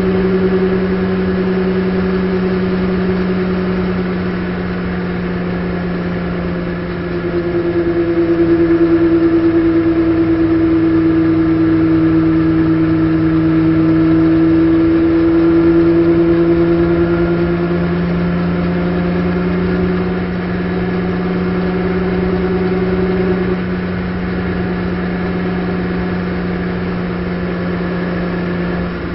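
Onboard sound of a BMW M240i Racing Cup car's turbocharged three-litre straight-six running hard at high, fairly steady revs. It eases off briefly a few times: between about 4 and 7 seconds in, near 20 seconds and about 23 seconds in.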